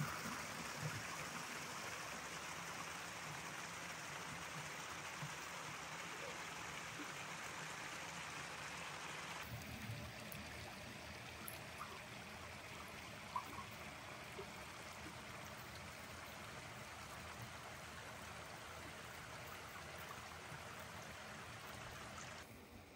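Water running steadily through a miniature hydroelectric dam. The tone of the flow changes slightly about nine seconds in.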